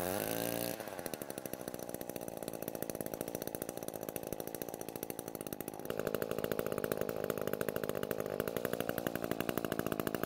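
Echo PE-200 stick edger's small two-stroke engine running with its blade spinning. It revs up briefly at the start, then settles into a steady run. The engine runs okay on newly adjusted carburettor screws, though its compression is lower than normal.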